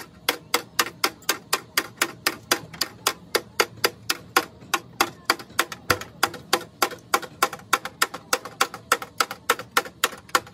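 Rapid, steady hammer blows on a car's crumpled sheet-steel front inner fender, about four to five strikes a second. This is panel beating, straightening accident damage by hand.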